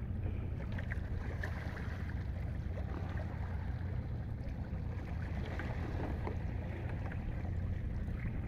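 Steady low wind rumble on the microphone, with faint lapping of choppy sea water around a small open boat.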